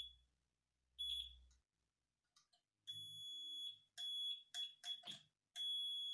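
Digital multimeter's continuity buzzer beeping as the probes make and break contact: a high steady tone, a short beep about a second in, several choppy beeps, then a longer unbroken tone near the end. The beep signals a closed circuit: a short from the welding inverter's mains plug earth wire, which the owner takes as a sign that something inside has broken down.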